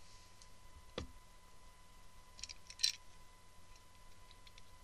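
Trading cards and their plastic sleeves or holders being handled: a single sharp tap about a second in, then a brief crisp rustle near the three-second mark, with faint ticks between.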